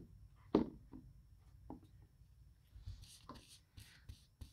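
A flat bristle paintbrush loaded with chalk paint stroking back and forth across a wooden board, a soft brushing hiss repeated a few times a second from a couple of seconds in. A couple of knocks near the start.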